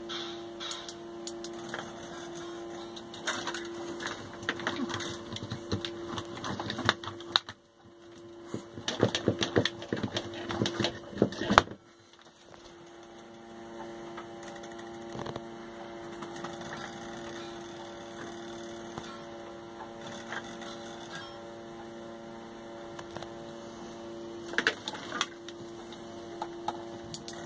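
Fruit machine reel's stepper motor humming steadily as it turns the reel. Irregular clicking and rattling comes in the first half, and the hum cuts out briefly twice there before resuming.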